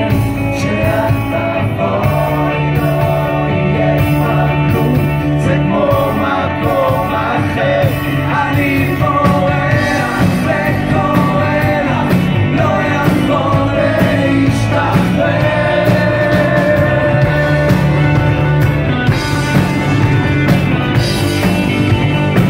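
A live rock band playing: a man sings lead into a microphone over electric guitar and drums.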